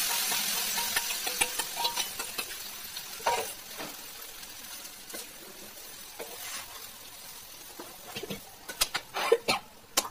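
Wet coconut paste poured onto a hot tempering of oil, mustard seeds, curry leaves and dried red chillies in a metal kadhai, sizzling loudly at first and dying down over a few seconds. A metal spatula then stirs and scrapes the pan, with sharp clinks near the end.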